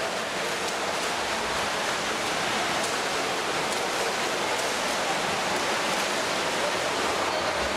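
Continuous splashing of several swimmers doing front crawl in an indoor pool: a steady rush of water noise.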